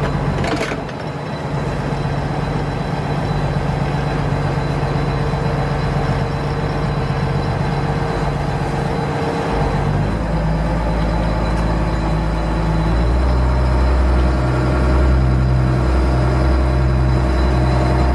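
Fishing boat's engine running steadily as a low hum, growing stronger about ten seconds in and again a few seconds later.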